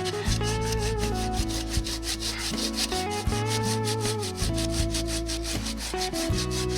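Hand saw cutting through a tree trunk, a quick, even rasping rhythm, over background music.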